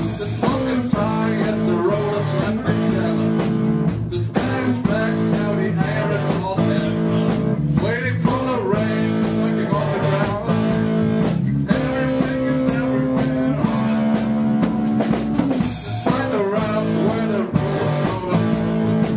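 Band playing live, with guitars over a drum kit beat.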